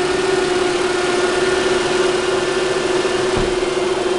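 Toyota RAV4 engine idling steadily with a constant hum, its electrical loads switched on during a charging-system test. A brief low thump comes about three and a half seconds in.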